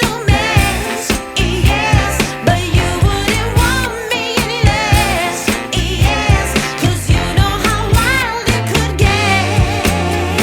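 Background pop song with a female singer and a steady beat.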